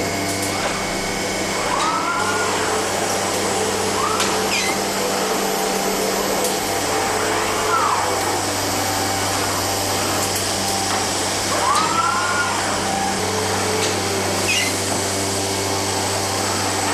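Running palletizing line of KUKA KR 180 PA robots and conveyors: a steady machine hum and hiss, with a brief rising-then-falling whine every few seconds as the robot arms' drives speed up and slow down on each move.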